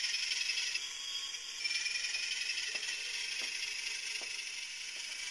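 HO-scale Trackmobile rail car mover model running under DCC: a thin, hissy mechanical whir from its small motor, gearing and onboard sound speaker, which dips briefly about a second in. A few faint clicks come in the middle.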